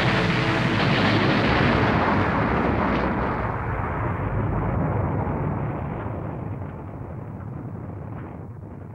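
Explosion sound effect: a loud, long rumble that slowly dies away over several seconds, the hiss at its top fading first.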